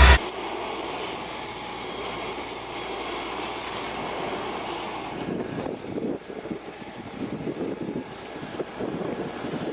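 Steady mechanical noise of a vehicle or machine running, turning rougher and more uneven with low rumbling about halfway through.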